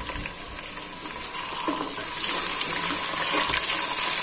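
Raw chicken sizzling in hot oil with browned onions in an aluminium pot as it is stirred with a wooden spoon. The sizzle grows louder about two seconds in, with a few light knocks of the spoon.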